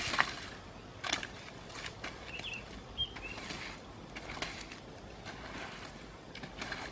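Outdoor forest ambience with small birds giving short chirps a few times near the middle, over scattered sharp crackles or rustling clicks.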